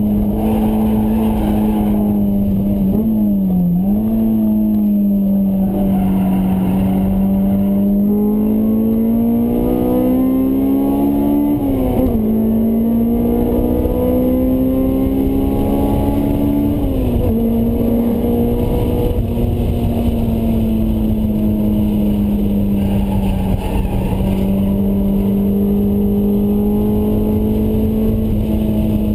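Honda S2000's four-cylinder engine through a Mugen exhaust, heard from inside the cabin at speed. The engine note dips briefly about three seconds in, climbs under acceleration, and drops sharply with upshifts about twelve and seventeen seconds in, then holds steady. Wind and road noise run underneath.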